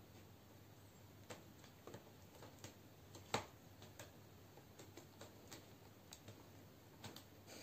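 Faint, irregular clicks and ticks of cats' claws catching on the rope wrapping of a scratching post as they paw and climb it, with one louder click about a third of the way in.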